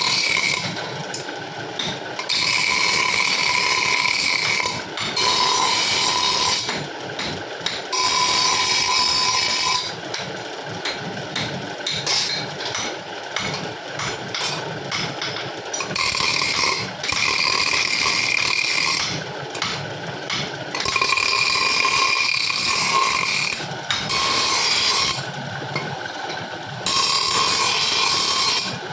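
A power tool running with a steady high whine in repeated spells of one to three seconds, alternating with rougher, noisier stretches.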